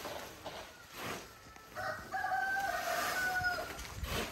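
A rooster crowing once, a single call of about two seconds starting a little before the middle.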